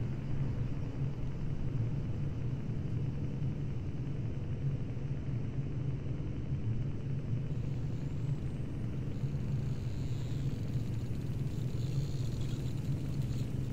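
Steady low rumble of a boat's engine under way, heard from the bow deck. Faint high tones creep in from about eight seconds in.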